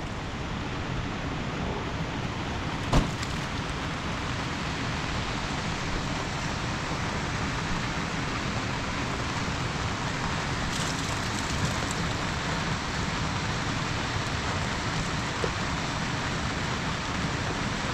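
Steady rain falling, with a single sharp knock about three seconds in.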